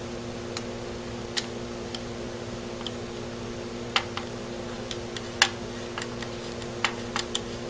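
Scattered light metal clicks and taps, about ten at uneven spacing, from the small parts of a Mosin-Nagant's trigger guard and tang screws being handled and fitted by hand, over a steady low hum.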